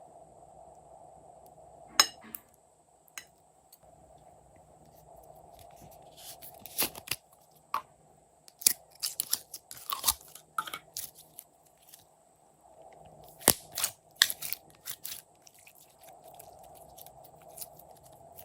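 Glossy slime worked by hand, giving irregular sharp clicks and crackling pops in clusters, over a faint steady hum.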